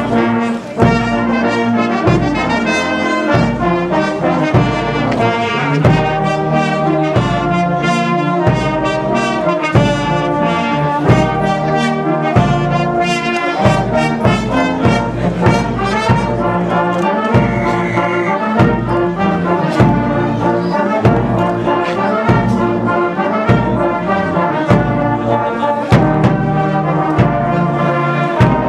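Brass band playing a tune in the open street with a steady beat, trombones and trumpets carrying the melody.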